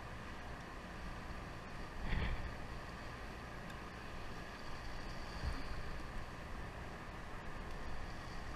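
Sportfishing boat's engine running with a steady low rumble, water washing along the hull and wind on the microphone, with a brief louder swell about two seconds in.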